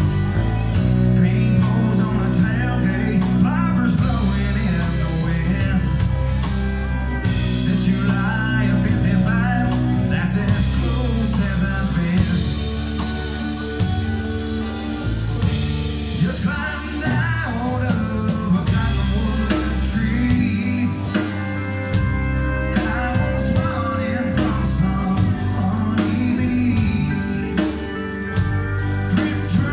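A live band playing a country song on electric guitars, bass and drums.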